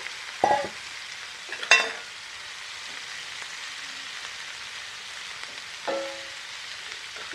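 Eggplant, onion and tomato frying in hot mustard oil in a heavy-bottomed kadhai, a steady sizzle while a wooden spatula stirs them. A sharp knock comes about two seconds in, and a fainter one about six seconds in.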